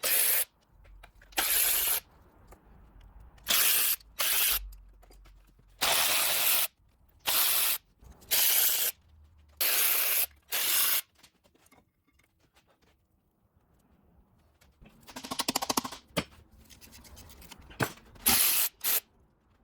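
A power ratchet run in short bursts, loosening and spinning out the intake manifold bolts on a small-block Chevy 350 V8: about ten bursts of under a second each, a pause, then a longer run with rapid clicking and a few shorter bursts near the end.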